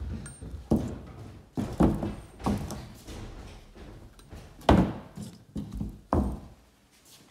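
A heavy Cummins diesel-generator water pump being shifted and turned over on a tabletop, knocking against the table in a series of dull thunks, the loudest a little under five seconds in.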